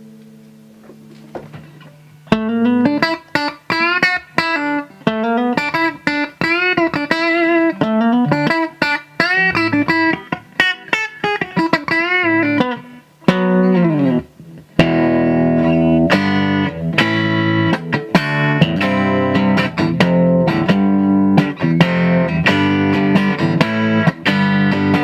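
Electric guitar (a Fender Telecaster through a Fender Super 210 tube amp) played through a DOD FX80-B Compressor Sustainer pedal: a held note fades out, then single-note lines with bends and vibrato, a falling run, and from about halfway on repeated bar chords with an even, sustained level.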